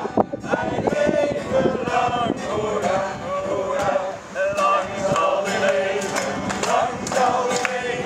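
A group of men and women singing together to a strummed acoustic guitar, with hands clapping along in the later part.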